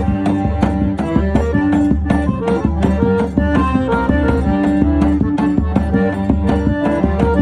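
Forró band playing an instrumental passage: a steady, quick percussion beat under held melody notes.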